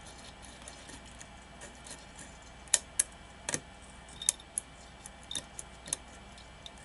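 Small, irregular metallic clicks of a lock pick working the pins of a pin-tumbler challenge lock held under tension, with a few louder clicks in the middle.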